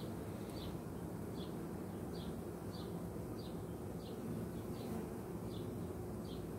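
Steady hum of a honey bee colony on an open hive, the bees starting to get jumpy. A short high chirp repeats about every two-thirds of a second over the hum.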